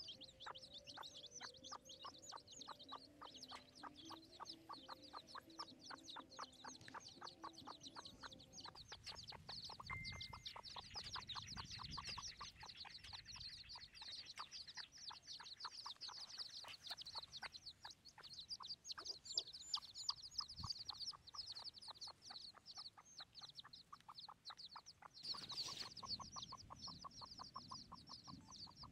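Wild chicken chicks peeping in a rapid, continuous run of high chirps, with soft clucking from a hen and a brief burst of noise near the end.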